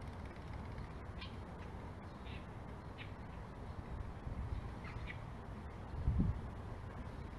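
A few short bird calls scattered through, over a steady low rumble of wind and handling noise. A dull thump comes about six seconds in.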